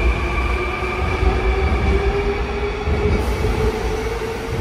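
Seoul Subway Line 2 electric train pulling out of the station: its traction motors whine in a slowly rising pitch over the low rumble of the wheels as it picks up speed.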